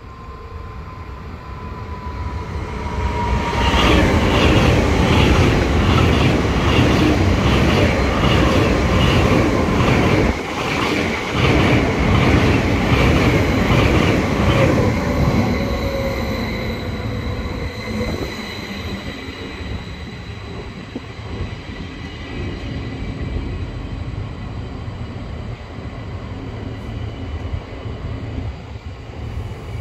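SBB ICN electric tilting train passing through at speed: its wheels clatter in a steady rhythm over the rail joints, loudest for about ten seconds from roughly four seconds in. It then dies down to the quieter, steady running of a double-deck electric train, with a thin high whine.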